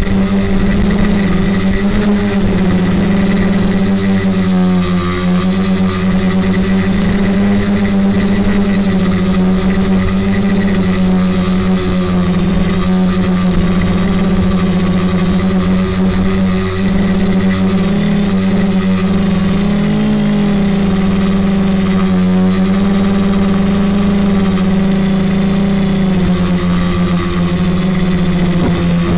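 Multirotor's electric motors and propellers humming steadily in a hover, one strong low tone with overtones, its pitch wavering slightly about two-thirds of the way through.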